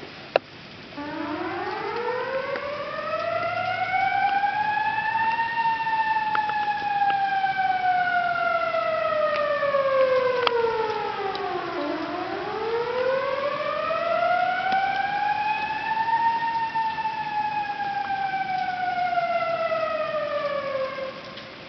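River flood warning siren wailing: it winds up from about a second in, rises and falls slowly twice, each cycle about ten seconds, and stops near the end. It warns that the river may overflow its banks. A single sharp click sounds just before it starts.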